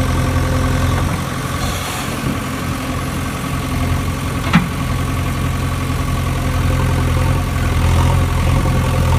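A steady, low, engine-like idling drone, with one sharp click about four and a half seconds in.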